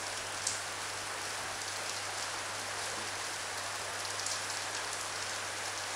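Ham and cheese sandwich sizzling steadily in a hot metal pan: an even, fine crackle.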